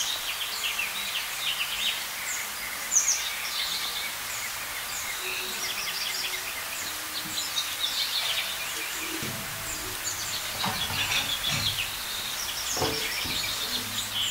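Small birds chirping busily, many short high chirps overlapping. In the second half, a few clinks and knocks of a stainless-steel chafing-dish lid being lifted.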